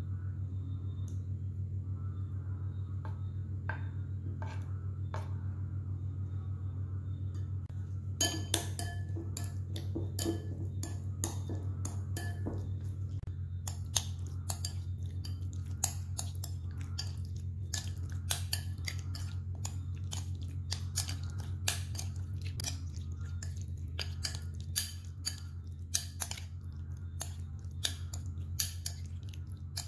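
A metal spoon clinking and scraping against a ceramic bowl while stirring pork pieces into marinade, over a steady low hum. Only a few light taps at first, then frequent sharp clinks from about eight seconds in.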